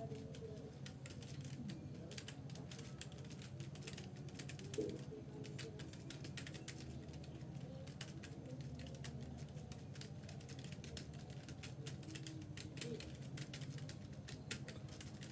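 Typing on a computer keyboard: rapid, irregular key clicks running on steadily, with one louder key strike about five seconds in, over a low steady hum.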